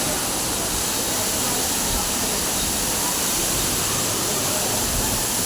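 Waterfall pouring down in a loud, steady rush of water.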